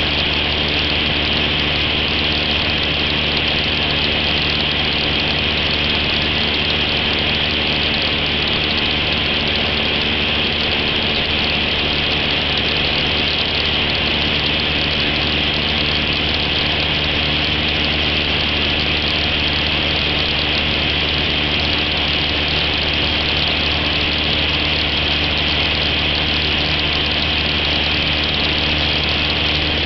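Cessna 172's piston engine and propeller running steadily in cruise flight, heard from inside the cabin as an even drone of low tones under a constant hiss of air.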